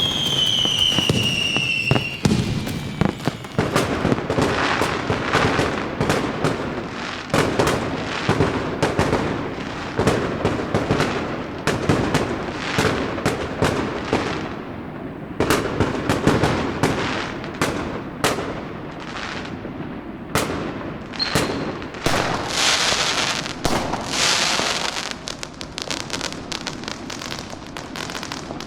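Fireworks and firecrackers going off in rapid, dense succession: sharp bangs and crackling. In the first second and a half a whistle falls in pitch, and the bangs thin out toward the end.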